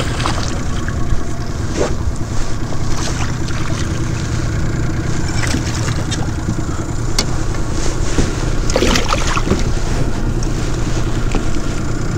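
Small outboard motor running steadily while trolling, with a hooked crappie splashing at the surface beside the boat. Short sharp splashes and knocks come every second or two, thickest about three quarters of the way through.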